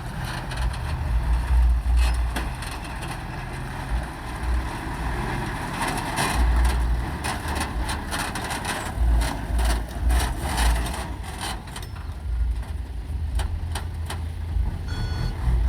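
Heavy truck or construction machine engine running with a pulsing low rumble and irregular knocks and clatter. A reversing alarm starts beeping near the end.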